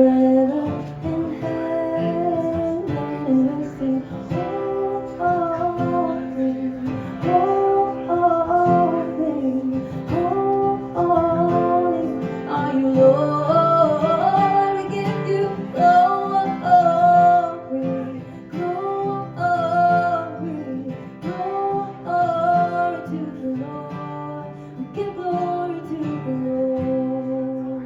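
Acoustic guitar playing the closing passage of a song, with singing over it in repeated melodic phrases. A chord is held near the end.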